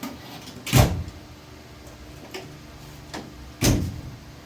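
Two loud knocks or clunks, about three seconds apart, over a steady low hum.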